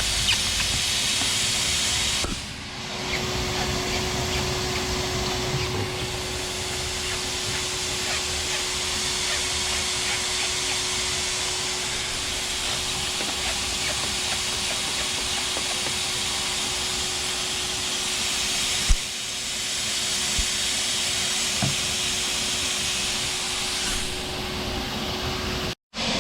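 Shop vac motor running as a blower with a steady whine over a loud rush of air. It dips briefly about two seconds in and cuts off suddenly near the end.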